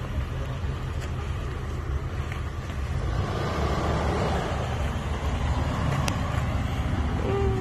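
Engine of an off-road Jeep running with a steady, pulsing low rumble as the Jeep crawls over a rutted dirt trail.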